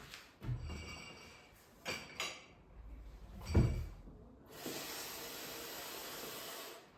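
Household cleaning noises: a few knocks and a ringing clink, the loudest knock about three and a half seconds in. A steady hiss follows, lasting about two seconds.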